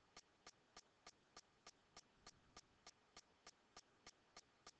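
Near silence with a faint, evenly spaced ticking, about three ticks a second.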